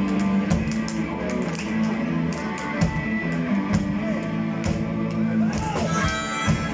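Live rock band playing an instrumental passage: electric bass, drum kit and electric guitar, with harmonica bends coming in near the end.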